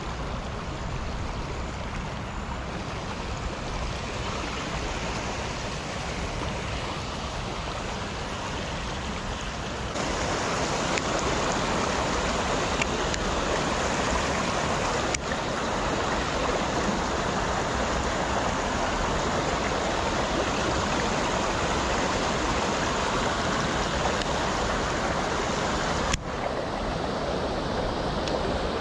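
Fast river water rushing over rocks in rapids below a weir: a steady wash of running water that steps up louder about ten seconds in.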